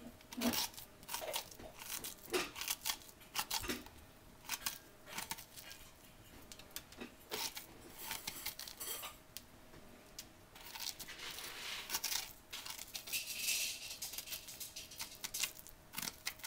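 Spoon scraping the seeds and stringy pulp out of the cavity of a halved raw acorn squash, in irregular strokes with small clicks and wet scrapes.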